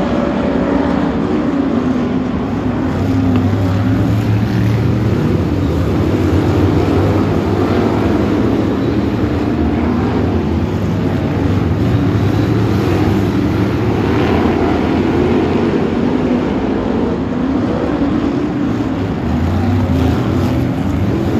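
A pack of BriSCA F1 stock cars, big V8 engines, running together around the oval in a loud, steady engine din with the pitch wavering as the drivers work the throttles.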